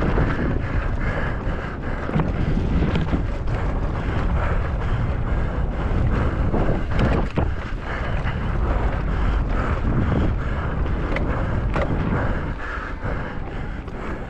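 Wind buffeting the camera microphone of a mountain bike at racing speed, with scattered rattles and knocks from the bike over rough ground.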